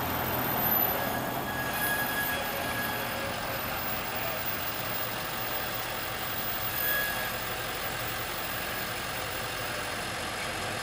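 Fire engine's diesel engine running steadily as the truck pulls slowly out of the station bay, with a short high tone twice.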